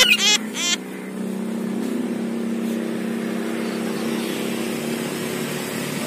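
A quick run of chattering calls from a caged oriental magpie-robin in the first second. Then a steady low motor hum for the rest.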